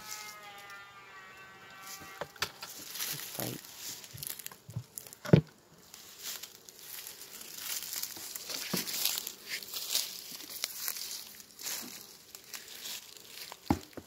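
Crackling rustle of dry leaf litter and handling around wooden beehives, broken by several sharp knocks, the loudest about five seconds in. A short buzzing tone is heard in the first two seconds.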